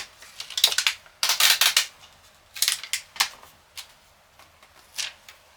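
Monitor packaging being handled: a run of short rustles and sharp clicks, the loudest about a second and a half in.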